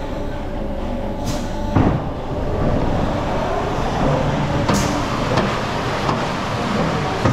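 A Vekoma suspended looping coaster train rolling slowly along its overhead track through the station, with a steady rumble and several sharp clanks.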